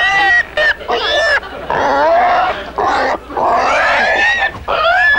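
Pig squealing in a string of about six short, high calls, each bending up and down in pitch.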